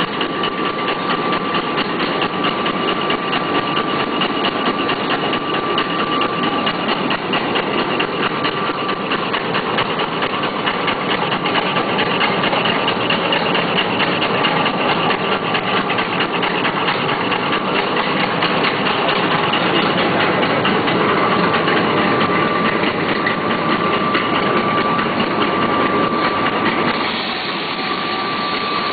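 Mini pocket-handkerchief tissue machine running: a dense, rapid, steady mechanical clatter from its folding and cutting rollers, with a steady high whine, a little quieter near the end.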